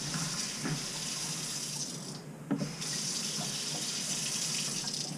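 Water running from a Moen single-handle kitchen faucet into the sink, a steady rush that cuts out briefly a little over two seconds in and starts again with a knock. The over-greased new cartridge lets the weight of the handle shut the faucet off.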